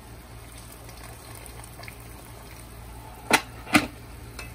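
Pot of bhaji okra cook-up rice bubbling at a steady simmer with freshly added water. About three seconds in come two sharp knocks half a second apart, the loudest sounds.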